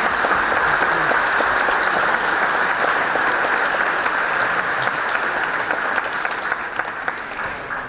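A large audience applauding, with dense clapping that fades away near the end.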